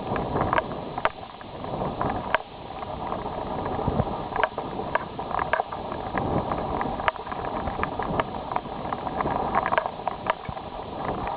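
Footsteps crunching through snow, sharp irregular crunches about once or twice a second over a steady rush of wind on the microphone.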